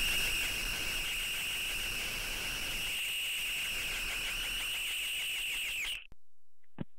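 A steady, high-pitched whistling tone with a slight waver and fainter overtones above it, cutting off suddenly about six seconds in; then a few faint clicks.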